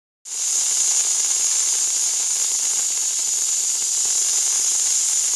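Compressed air hissing steadily through a solid-state CPMAS NMR probe's sample-eject pipe, switched on about a quarter second in to test the pipe's newly taped joint.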